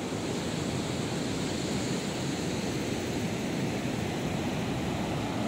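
Steady roar of surf from big waves breaking on the beach, an even rushing noise with no distinct events.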